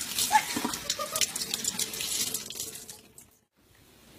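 Kitchen-sink tap running, with water splashing over a small dog being washed in the sink. It cuts off suddenly about three seconds in.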